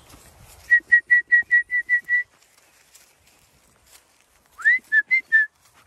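A shepherd whistling to call a flock of ewes in: a run of eight quick, even notes at one pitch, about five a second, then after a pause a rising whistle followed by three short notes.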